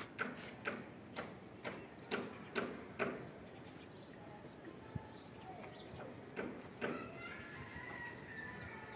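Wet laundry being flapped and snapped out while hung on a clothesline: a run of sharp slaps about two a second for the first three seconds, then a few single ones. Birds chirp near the end.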